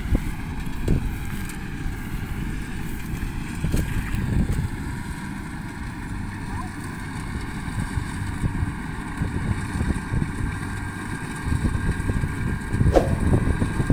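Wind buffeting the microphone, a loud uneven low rumble, over the steady drone of a combine harvester's engine working the rice field.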